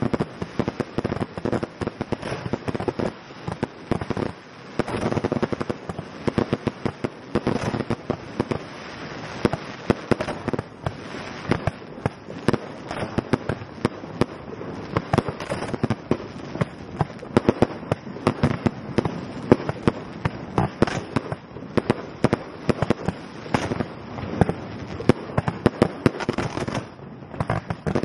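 Fireworks display: a dense, continuous barrage of sharp bangs, many each second, overlapping without a pause.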